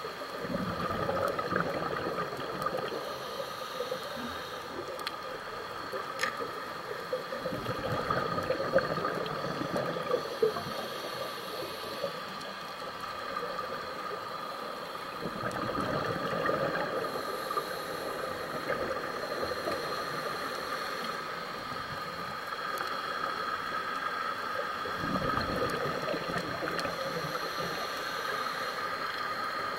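Underwater sound of scuba breathing through a regulator: a hiss on each inhale alternates with a gush of exhaled bubbles, one breath about every eight seconds, over a steady high hum.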